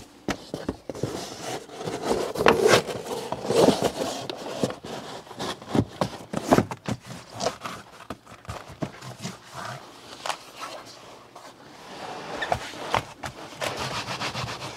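EVA rubber-foam car floor mat being handled and pressed into a car footwell onto its hook-and-loop fastening strips: irregular knocks, clicks and scuffs.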